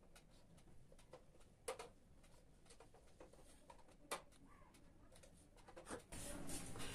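Near silence broken by a few faint ticks and taps of a marker and plastic drawing instruments on a whiteboard, with a louder shuffle near the end as the instruments are set down.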